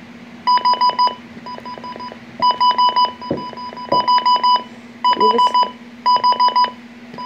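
Midland WR-300 weather radio's alert siren sounding in its siren test: bursts of four or five rapid high-pitched beeps, about one burst a second, some bursts much quieter than others.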